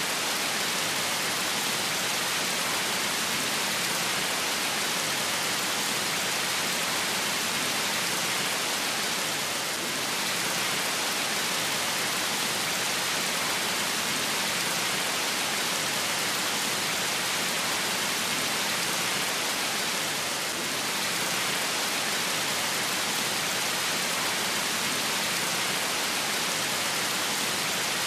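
Water pouring down the tiers of a small artificial waterfall, a steady even rush of falling water.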